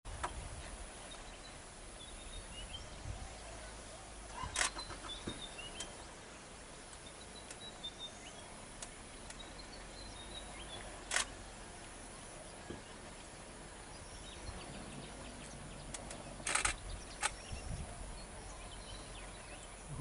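Outdoor ambience with a steady background hiss and faint bird chirps, broken by three sharp clicks or knocks: a little before a quarter of the way in, just past halfway, and a short cluster about four-fifths of the way in.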